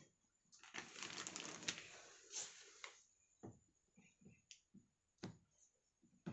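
Faint rustling for about two and a half seconds, then a few scattered soft taps and clicks: someone handling things at close range.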